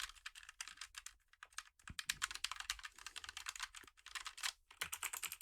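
Rapid typing on a Keychron K1 V4 low-profile mechanical keyboard with Gateron Red linear switches: a quick, dense stream of light key clicks, faint as picked up by a microphone in front of the typist's mouth.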